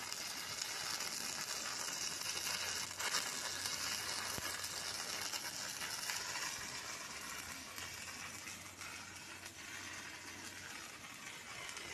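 Stick (shielded metal arc) welding arc from an inverter welder, crackling and sizzling steadily as the electrode burns along a steel plate. The crackle grows softer about two-thirds of the way through.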